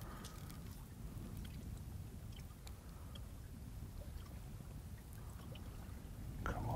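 Water lapping and splashing against the hull of a small boat, with a steady low rumble and a few faint ticks; a brief louder knock or slap near the end.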